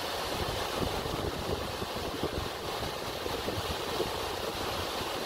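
Small waterfall rushing steadily down a rock face into a pool.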